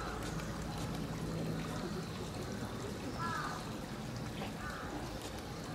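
Steady trickle of running water, with faint distant voices.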